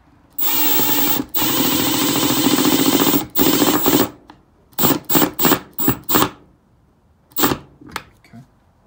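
Milwaukee M12 Surge hydraulic impact driver driving a small screw into wood with the trigger feathered to keep torque low. It runs for about three seconds with one brief stop, then a shorter run, then a string of about six short trigger blips, and one more blip later.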